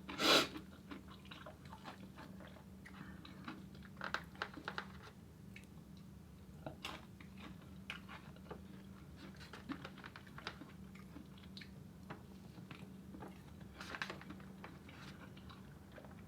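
A person chewing and biting food close to the microphone, with scattered small clicks and crunches of mouth noise and a louder sharp click about half a second in. A faint steady hum runs underneath.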